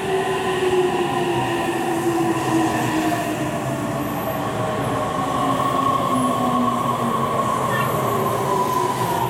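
Meitetsu 3100 series and 3150 series electric trains, coupled together, pulling into a station and slowing past the platform: steady wheel and rail noise with a whine that falls slowly in pitch as the train brakes.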